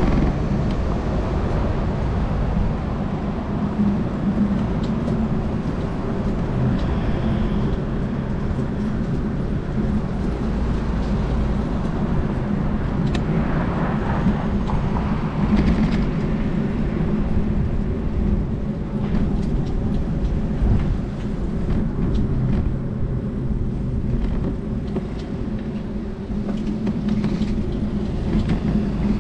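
Steady low rumbling noise of riding a bicycle through city streets: wind on the microphone and road and traffic noise, with a few faint clicks.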